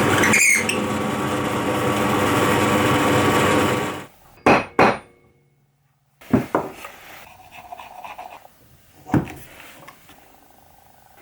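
A machine runs with a steady, even buzz and stops suddenly about four seconds in. It is followed by a few sharp knocks, two close together and then two more spaced out.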